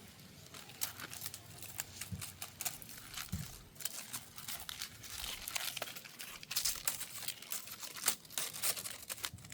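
Dry leaves rustling and crackling as cats scamper and bat at them: irregular crisp crackles, busiest about halfway through and again near the end.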